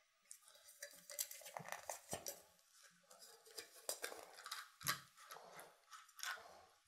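Faint handling sounds: a small plastic 360Fly 4K camera being twisted and pulled free of its green packaging insert, irregular light clicks and scrapes.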